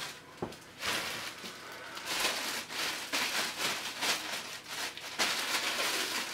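Plastic packaging bag crinkling and rustling in irregular bursts as it is handled and opened.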